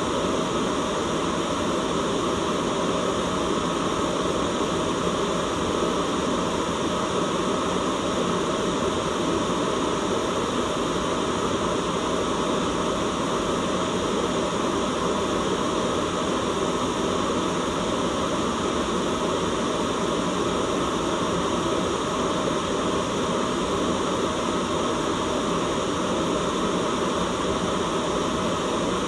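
Steady white noise: a continuous, unchanging hiss with no breaks.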